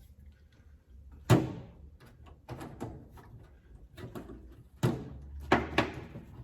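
Several sharp knocks and clunks, with lighter clicks and clatter between them, from metal parts and tools being handled during car bodywork. The loudest knock comes about a second in, then a cluster of three near the end.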